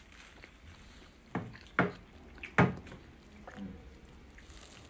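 Three sharp knocks, the third and loudest about halfway through, followed by a couple of softer knocks.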